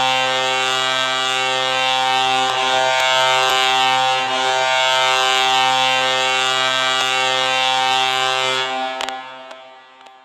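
Colorado Avalanche goal horn blaring in one long steady blast, signalling a home-team goal. It cuts off about nine seconds in, and the sound dies away after it.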